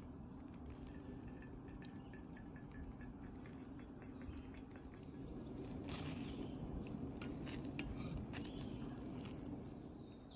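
Light clinks and taps of cooking utensils against a metal mug and pan, getting busier about six seconds in as eggs are stirred in the pan, over a steady low hum.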